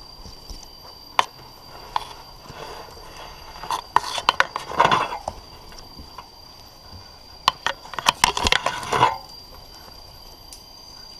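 A tree climber's hands, clothes and gear scraping and knocking against tree bark and vines. There are a few single knocks and two busier stretches of rubbing and scraping, about four and about eight seconds in.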